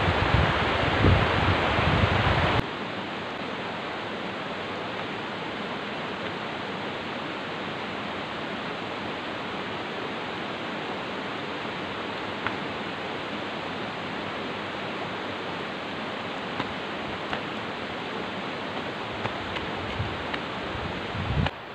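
Shallow rocky river rushing over boulders: a steady rush of water. It is louder, with low thumps, for the first two and a half seconds, then drops to a steadier rush with a few faint clicks and a low rumble just before the end.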